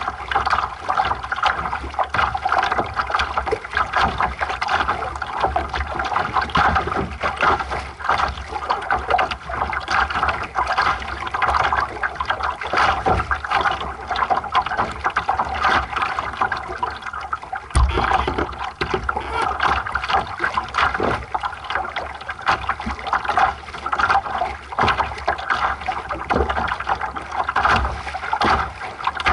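Water rushing and splashing against the hull of a small sailing dinghy under way, a steady wash broken by many small irregular slaps. About eighteen seconds in, one sharp knock stands out.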